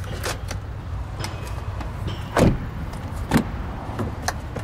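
Central locking of a 2010 Lexus RX350 being worked from the door-panel switch: a few small clicks, then two louder thunks of the door lock actuators about a second apart, over a steady low rumble.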